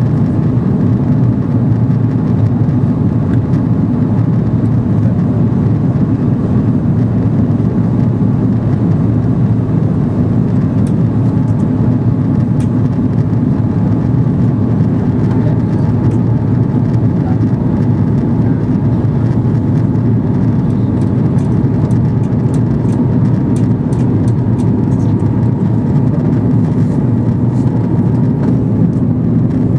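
Steady drone of an Airbus A330 heard from inside the passenger cabin in flight: engine noise and rushing airflow, low and even, with no change in pitch.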